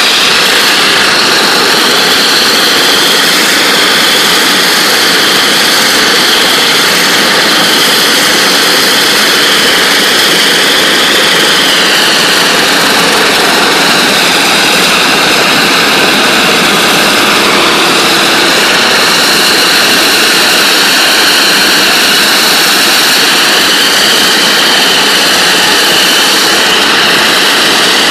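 NLB Spin Jet rotary water-jetting head firing 40,000 psi water at a concrete floor: a loud, continuous hissing roar with high whistling tones that drift slightly in pitch.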